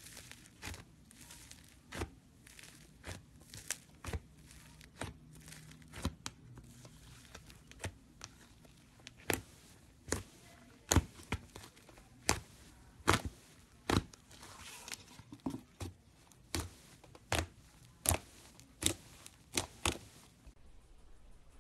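Foam slime (floam) being pressed and squished by hand, giving a run of sharp crackling pops, roughly one a second and sometimes two close together. The pops get louder about halfway through.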